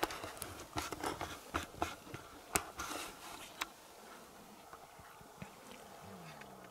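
Faint handling noise inside a hunting blind: a run of light clicks, taps and scrapes for the first three and a half seconds or so, then quieter, with a short low falling tone near the end.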